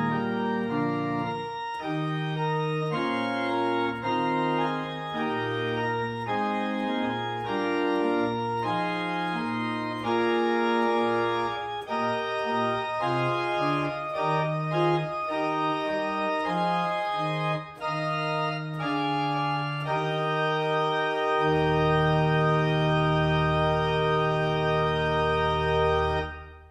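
Church organ playing a slow piece of sustained chords that change about once a second, then ending on one long held chord with deep pedal notes added under it for its last few seconds, which stops near the end.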